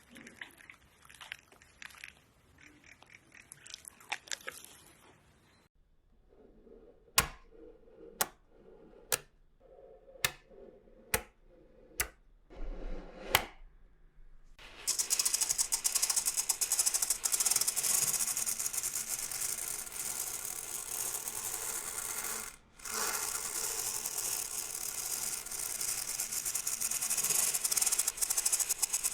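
Small hard objects clicking and rattling. First come faint scattered clicks, then about seven sharp taps roughly a second apart, each with a short ring. From about halfway through there is a long, continuous jingling rattle like coins or beads being shaken, broken once by a brief pause.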